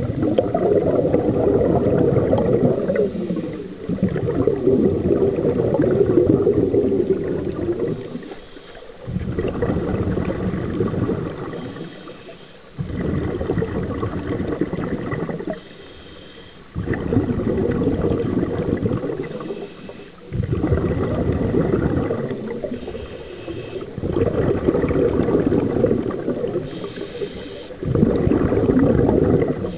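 Scuba diver's breathing through a regulator, heard underwater: a short hiss on each inhale, then a longer rumble of exhaled bubbles, repeating about every three to four seconds.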